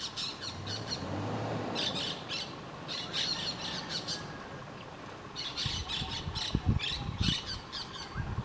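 Green parakeets calling: repeated shrill squawks and chatter in short clusters every second or so. A few low thumps come in the later part.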